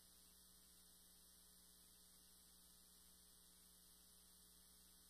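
Near silence: a faint, steady electrical hum with light hiss, the background noise of the recording between spoken phrases.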